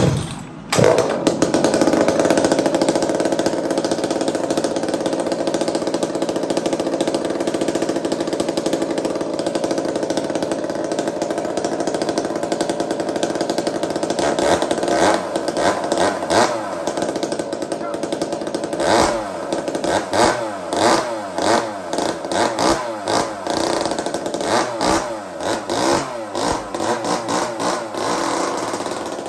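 Two-stroke chainsaw fitted with a shop-built expansion-chamber muffler, started about a second in and running steadily at a fast idle. From about halfway on it is revved up and let back down again and again.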